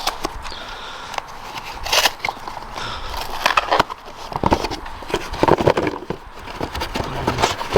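Rummaging through a cardboard box of parts: cardboard scraping and packaging crinkling, with irregular knocks and clatter as items are shifted and lifted out.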